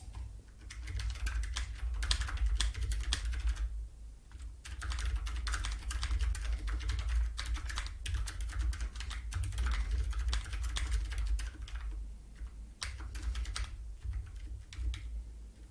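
Typing on a computer keyboard: long runs of quick keystrokes, with a brief pause about four seconds in and another about twelve seconds in.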